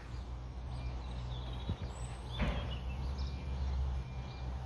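Construction machinery working next door, its engine a steady low rumble, with faint birdsong above it and a brief high squeal falling in pitch about two and a half seconds in.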